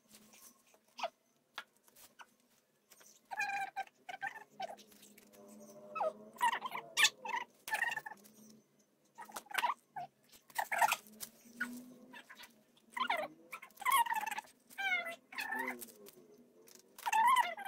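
An animal calling over and over: a string of short pitched calls that rise and fall, with faint clicks in the gaps.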